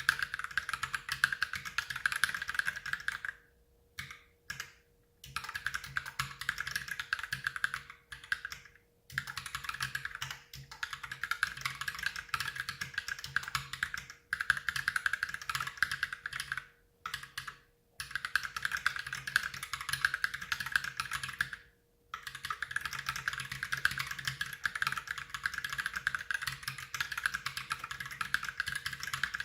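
Fast continuous typing on an Ultimate Hacking Keyboard mechanical keyboard fitted with lubed Holy Panda tactile switches: a dense run of keystroke clacks, broken by several short pauses.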